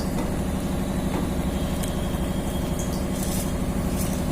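A steady low mechanical hum, like a running motor, with a few faint clicks over it.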